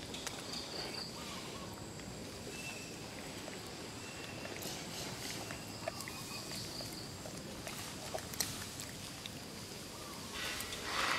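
Outdoor ambience of insects calling steadily in a high pitch, with pulsing trills coming and going. Faint scattered clicks and light rustling, with a louder brushing rustle near the end.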